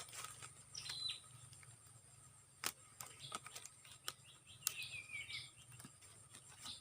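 Faint outdoor birdsong: a short high falling note about a second in and a quick run of warbling notes near five seconds, with a few sharp clicks in between.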